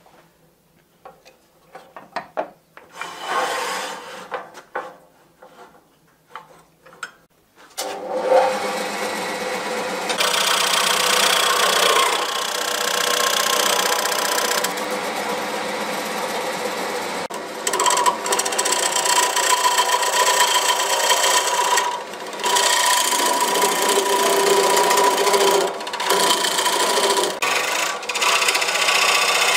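Turning tool cutting a large wooden bowl spinning on a wood lathe: a continuous rough scraping of steel on wood that starts about eight seconds in and runs on with small changes in level. It follows a few seconds of scattered quieter knocks and rubs.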